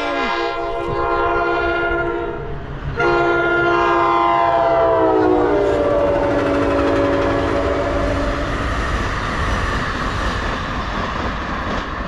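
NJ Transit ALP-45DP locomotive's chime horn sounding a long chord, a brief break, then a second long blast whose pitch drops as the locomotive passes, ending about eight seconds in. After it the bilevel passenger cars go by with a steady rumble and wheel noise on the rails.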